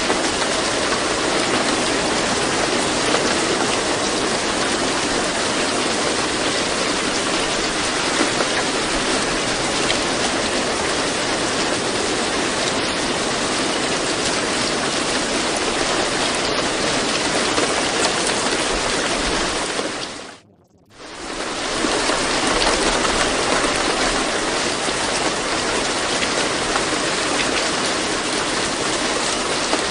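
Steady rain ambience, an even hiss of falling rain, that dips sharply for about a second roughly two-thirds of the way through and then comes back at the same level.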